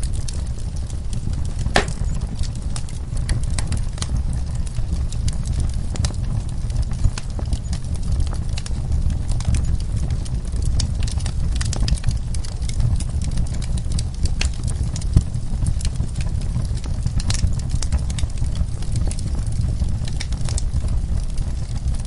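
Wood fire burning in a fireplace: a steady low rumble from the flames under frequent sharp crackles and pops from the logs, with one louder pop about two seconds in.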